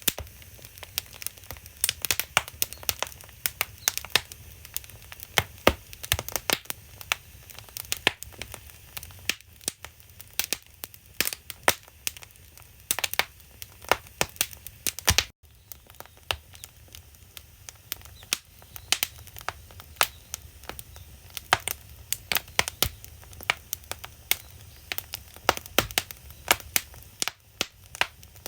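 Firewood burning in an agungi, the traditional Korean firebox, crackling and popping with many irregular sharp snaps over a steady low rumble. The sound cuts out for a moment about halfway through.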